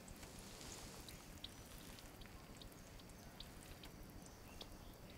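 Faint water drips falling at irregular times over a low hiss, close to silence.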